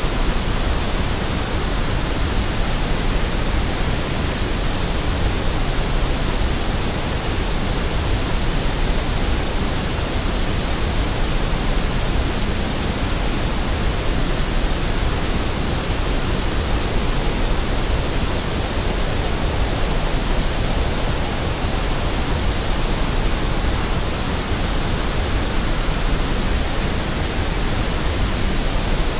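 Steady white noise: an even, unchanging hiss that spreads across all pitches.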